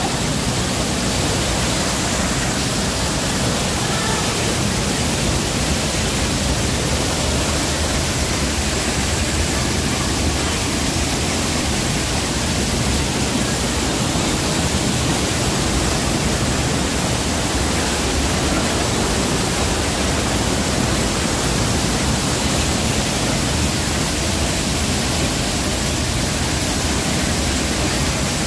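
Waterfall: a steady, loud rush of falling water, even and unbroken throughout.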